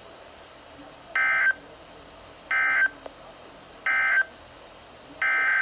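NOAA Weather Radio EAS (SAME) digital data bursts, a buzzy two-tone screech. Three short bursts about a second apart are the end-of-message code closing the thunderstorm watch. A longer header burst starts about five seconds in, opening the next alert.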